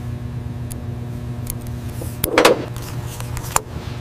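A steady machine hum with scattered sharp metallic clicks and clinks, and one louder clank about two and a half seconds in: workshop machinery and hand-tool sounds.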